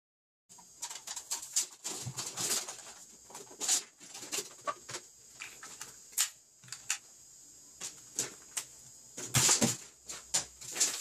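Hands handling and taking apart a plastic-cased retractable tape measure: irregular clicks, knocks and scrapes of the case and steel blade, with a flurry of louder knocks about nine seconds in.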